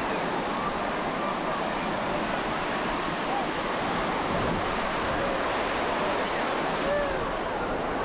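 Ocean surf washing on a beach in a steady rush, with scattered snatches of distant voices.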